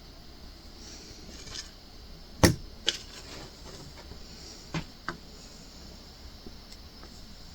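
Small sharp clicks and taps from diamond-painting work on a hard acrylic ornament: four in all, two close together about two and a half seconds in, the first the loudest, and two more around five seconds, with a faint rustle before them.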